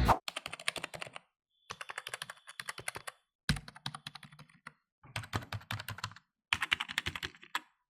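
Fast typing on a budget backlit computer keyboard: quick runs of key clicks, several a second, in four spells broken by short silent gaps.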